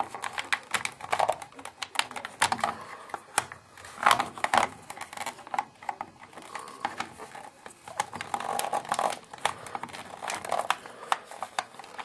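Small plastic parts of a Kamen Rider Dragon Knight toy belt clicking and rattling irregularly as they are pushed and fiddled into place.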